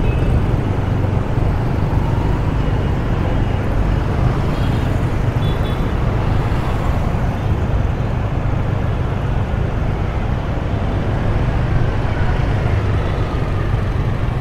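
Steady rumble of a vehicle moving through city street traffic, engine and road noise holding even throughout.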